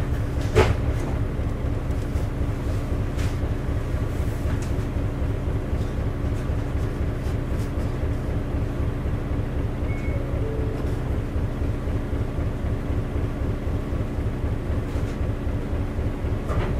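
Isuzu LV city bus's 8PE1-N diesel engine running steadily under way, heard from inside the cabin, with a constant low rumble and a steady tone over it. A single sharp click or rattle sounds about half a second in.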